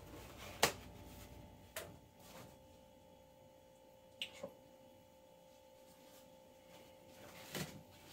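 Kitchen paper towel being handled: a sheet torn from the roll and the roll set down, giving a few short sharp sounds and soft paper rustles. A faint steady hum lies underneath.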